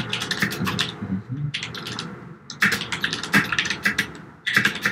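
Typing on a computer keyboard: quick runs of key clicks in three or four bursts with short pauses between them.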